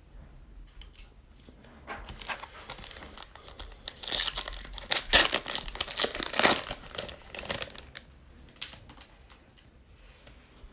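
Foil trading-card pack wrapper being torn open and crinkled, a run of crackling from about two seconds in to about eight seconds in, loudest in the middle.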